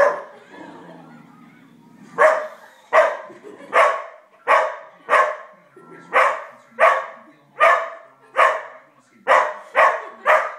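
Five-month-old Australian Shepherd puppy barking at the television: one bark, a pause of about two seconds, then a steady run of about a dozen barks, roughly one every three-quarters of a second.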